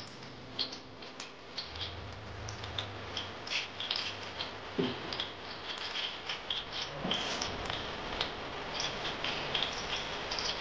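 Cooking oil heating in a wok, crackling with many small, irregular pops.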